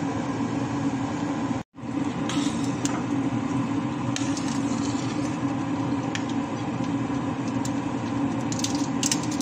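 A steady kitchen hum, with a few light clicks of a metal spoon against a stainless steel pot as raw rice is stirred in water. The hum drops out for an instant near two seconds in.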